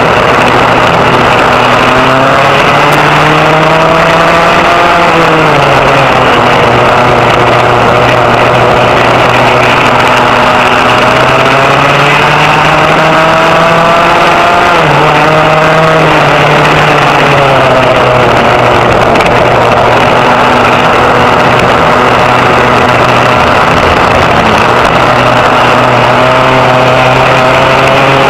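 Vintage rear-engine racing kart engines running hard at high revs, heard on board at close range. The engine pitch climbs gradually along the straights and drops sharply several times as the karts brake for corners, over a steadier engine tone from the karts running alongside.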